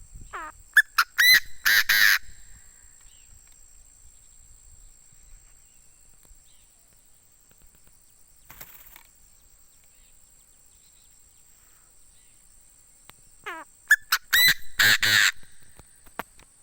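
Chinese francolin (decoy male) crowing its loud, harsh call series twice, about twelve seconds apart, each bout opening with a few rising notes and ending in a dense loud burst.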